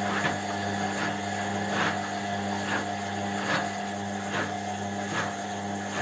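Indesit front-loading washing machine running with its drum turning: a steady motor hum with a regular beat about once a second as the laundry tumbles.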